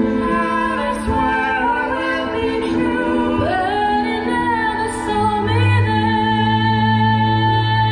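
A woman singing solo over a musical accompaniment in a stage-musical number, her voice moving through the line and then holding a long note near the end, with a deep bass note entering about two-thirds through.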